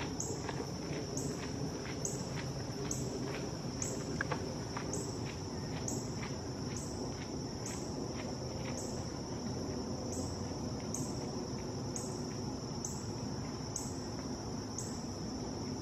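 Insect chorus: a steady high-pitched drone with a regular pulse about once a second, plus a faint ticking about twice a second that fades out about nine seconds in, over a low background rumble.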